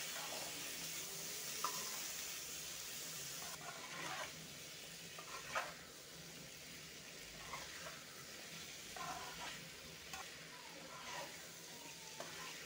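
Cucumber cubes and masala sizzling in a metal kadai while a spatula stirs them, with a short scrape against the pan every second or two. The sizzle softens after about three and a half seconds.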